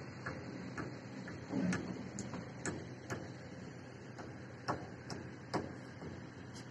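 Steady low machinery hum with irregular sharp clicks and knocks, roughly one every half second to second.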